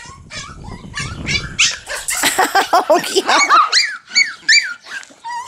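Maltipoo puppy yipping and whining in a rapid string of short, high cries, starting about two seconds in and stopping shortly before the end.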